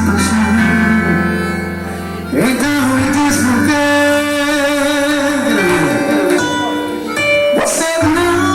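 A forró band playing: held melody notes with several slides between pitches.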